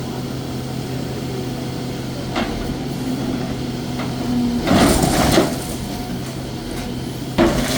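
Demolition machine's engine running steadily, with a loud crash of breaking material lasting about a second, about five seconds in, and another sharp crash near the end.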